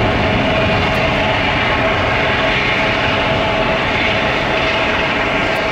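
Airbus A300-600F freighter's twin jet engines at takeoff power as it climbs away: a loud, steady rumble with a steady mid-pitched tone, easing very slightly near the end.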